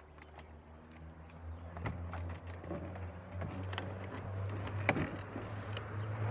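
Scattered clicks and knocks of a car's plastic interior door panel being handled and pushed back into place, over a steady low hum that slowly grows louder.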